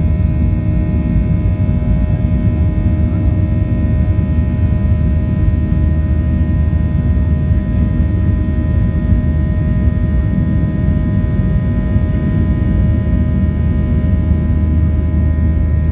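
Boeing 737-800 cabin noise during climb-out: the CFM56 turbofan engines and airflow make a steady, loud, low rumble, with several steady whining tones over it.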